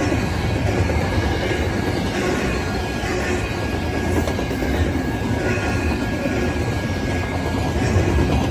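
Double-stack container freight train passing over a grade crossing: a steady heavy rumble of wheels on rail with a thin high steady tone over it.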